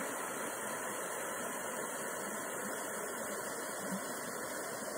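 Shallow stream water rushing over rocks in a small rapid, a steady, even rushing.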